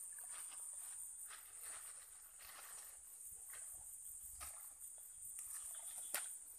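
A steady high-pitched insect chorus, with rustling of grass and weeds and footsteps as someone moves through dense undergrowth, and a sharp click about six seconds in.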